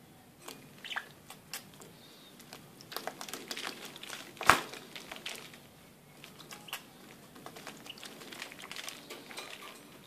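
Budgie's feet tapping and scraping on a wire cage top and the rim of a plastic water dish, a run of small irregular clicks with one loud knock about halfway through.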